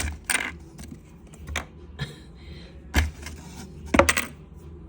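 Scattered sharp clinks and knocks of small hard objects being moved and dropped by a pet parrot at play, about half a dozen, the loudest about three and four seconds in.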